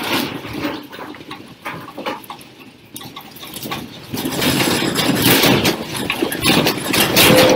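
Clattering and rattling of furniture and loose objects, with many small knocks and scrapes, growing louder about four seconds in.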